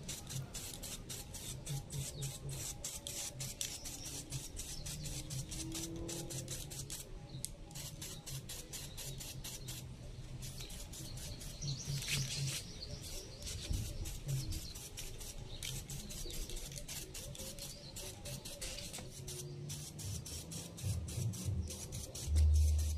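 Faint hiss of an aerosol spray can laying grey epoxy primer onto a motorcycle swing arm, under quiet background music, with a brief low rumble near the end.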